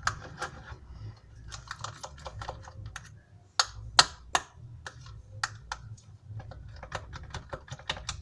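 Very sticky slime being squeezed and stretched by hand, giving a run of irregular sharp clicks and pops, a few louder ones about midway.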